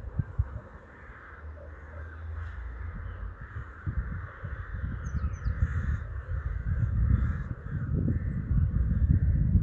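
A steady background chorus of birds calling, with two short high chirps about five seconds in, over low rumbling buffets on the microphone that grow louder in the second half.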